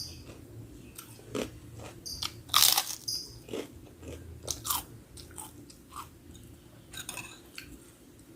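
Someone biting and chewing crunchy kerupuk (Indonesian crackers), with irregular crunches, the loudest about two and a half seconds in.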